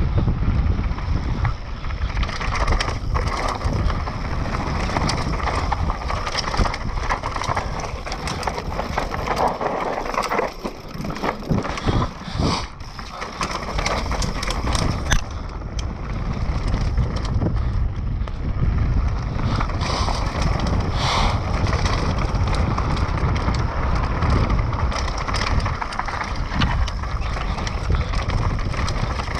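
Mountain bike descending a dry, rocky dirt trail at speed: wind buffeting the microphone, tyres crunching over dirt and stones, and the bike knocking and rattling over bumps. The wind rumble eases for a few seconds around the middle.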